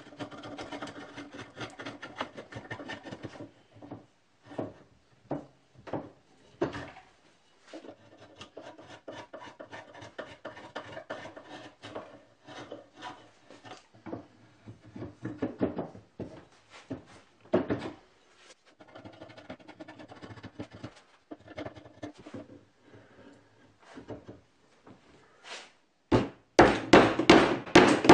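A steel draw knife shaving a wooden axe handle in quick, short scraping strokes, then intermittent scraping and handling of the wood. Near the end comes a rapid run of loud wooden knocks as the axe head is driven onto the handle.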